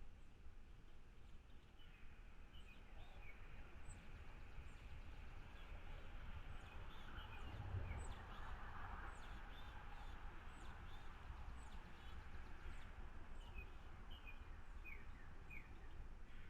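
Small birds chirping: many short, high chirps scattered throughout, over a steady low rumble of background noise.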